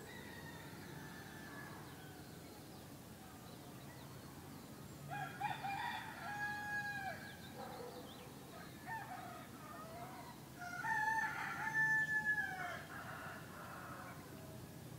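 Roosters crowing: two loud, drawn-out crows, each held and then falling away at the end, one about five seconds in and one about eleven seconds in, with fainter crowing farther off around them.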